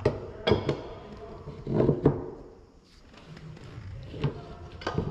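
Irregular clicks and knocks of a hand wrench working on a pipe fitting as it is tightened, with the loudest cluster about two seconds in.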